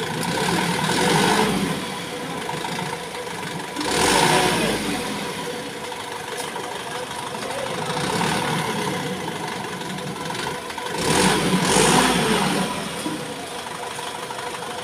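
Diesel engine of a Mitsubishi Canter crane truck running steadily, revving up in swells several times as the truck-mounted crane is worked, with a steady whine over the engine.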